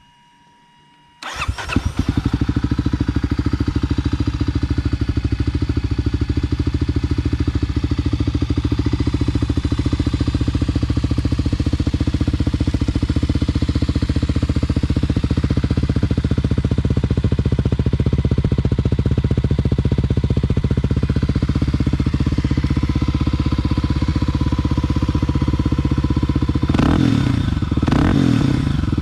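2022 Kawasaki KLX300's single-cylinder four-stroke engine, exhausting through a Yoshimura RS-2 pipe with spark arrestor, starts suddenly about a second in and settles into a steady idle. Near the end it is revved twice in quick blips.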